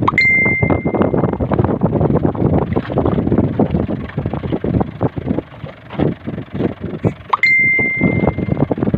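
Gusty wind buffeting the microphone, loud and uneven. Twice, near the start and about seven seconds later, a short rising whistle-like tone settles into a steady high note held for about a second.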